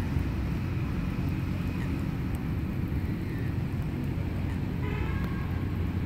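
Steady low outdoor rumble, with a short higher-pitched call about five seconds in.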